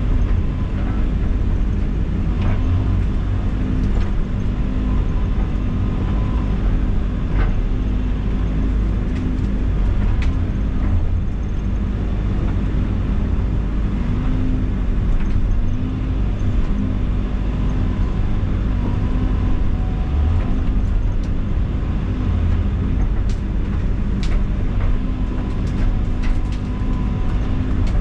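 Heavy equipment's diesel engine running steadily under load while clearing trees, with scattered sharp cracks and knocks over the top.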